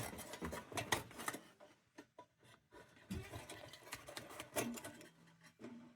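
Irregular light clicks, taps and scraping of tin lantern parts being handled and worked loose by hand.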